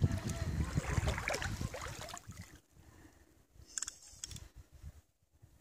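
Wind buffeting the microphone: an unsteady low rumble, loud for the first couple of seconds, then dropping away to faint gusts.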